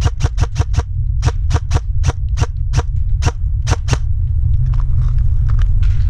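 Airsoft electric rifle firing: a rapid string of shots about six a second, slowing into single shots two or three a second, stopping about four seconds in. A steady low rumble sits under the shots, and only faint scattered ticks follow.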